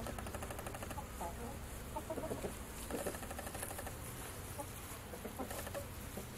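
Chickens clucking: short, scattered clucks from hens about one, two, three and five and a half seconds in, over a steady background hiss.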